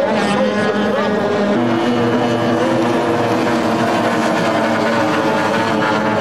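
Racing hydroplane outboard engines running flat out as the boats pass, a steady high engine note. About a second and a half in the note shifts to a lower, steady pitch.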